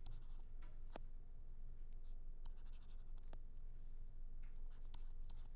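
Stylus tapping and scratching on a tablet screen during handwriting: a scatter of faint clicks and short scrapes over a steady low hum.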